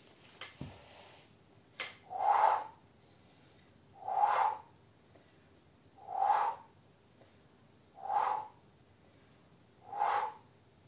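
A woman breathing out hard through pursed lips, five breaths about two seconds apart, one with each repetition of a chair dip exercise. A short click comes just under two seconds in.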